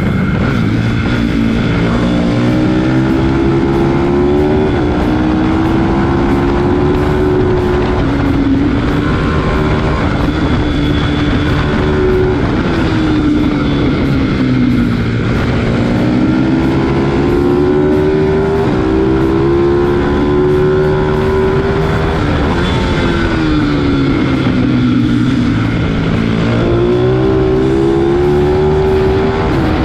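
Onboard sound of a pit bike's engine at racing pace. The engine note climbs slowly as it pulls through each gear and drops sharply under braking and downshifts, most deeply about 15 and 25 seconds in.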